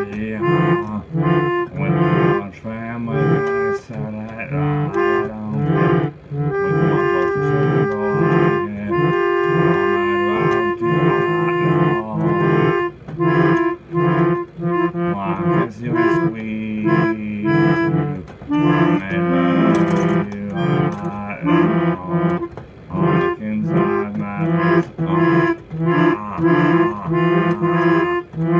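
Instrumental break in a recorded backing track: pitched music with held chords changing in a steady rhythm and no singing.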